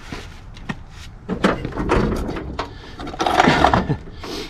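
Tools and gear being handled: scattered clicks and knocks, with two louder stretches of scraping and rustling about a second and a half and three and a half seconds in.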